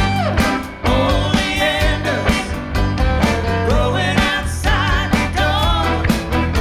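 Live rock band playing: electric guitars, bass, keyboards and drums, with a singer's voice over the band.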